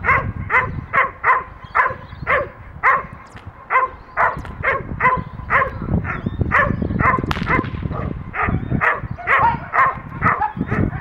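Dog barking over and over, about two barks a second, lunging on its leash at a decoy with a bite sleeve: the driven, aggressive barking of protection bite-work training.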